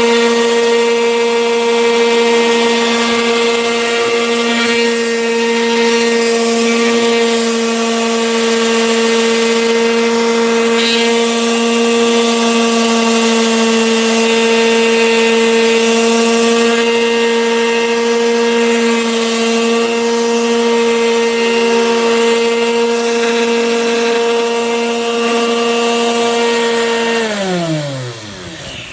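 Black & Decker electric sander running at a steady pitch as it sands a wooden board, then switched off near the end, its pitch falling as the motor winds down.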